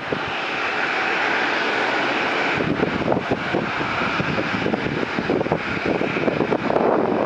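Jet engine noise from a Boeing 787-8's GEnx engines as the airliner rolls out on the runway after touchdown, a steady rushing sound that grows slightly louder, with wind buffeting the microphone.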